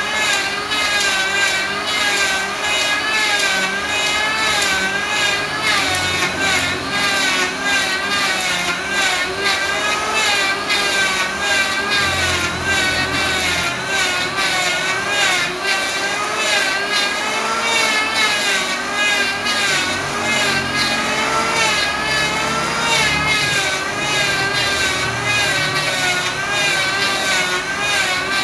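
Handheld electric planer running as it is pushed in passes along a trembesi (rain tree) hardwood slab, its motor whine wavering in pitch as the blades bite and cut shavings.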